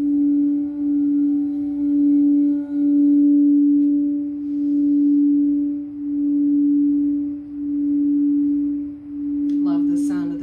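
Quartz crystal singing bowl, sung with a wand around its rim, holding one steady pitch with fainter overtones above it. Its hum swells and fades about every second and a half. A woman's voice comes in near the end.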